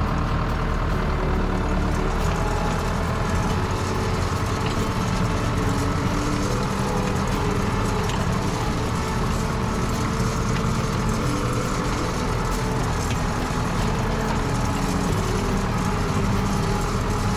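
Tractor engine running steadily under load while pulling a V-shaped wheel rake through cut hay.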